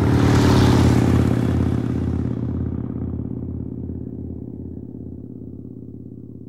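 Motorcycle engine running with a slow, lumpy pulsing beat, loudest at first and then fading away over several seconds before it cuts off abruptly.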